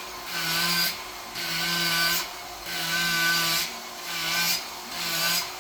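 A carving tool working a wooden sculpture in repeated strokes, five strokes of about a second each with short pauses between.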